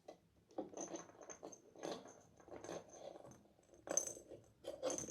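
Kittens batting and pouncing on toys: a run of short rattling, jingling clatters about once a second, the loudest two near the end.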